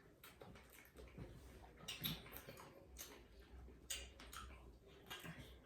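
Faint eating sounds of someone chewing a chocolate-covered strawberry: scattered small mouth clicks and smacks, a few seconds apart.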